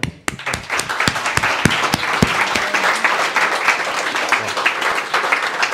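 Audience applauding in a small room: many hands clapping at once, building up about half a second in and holding steady.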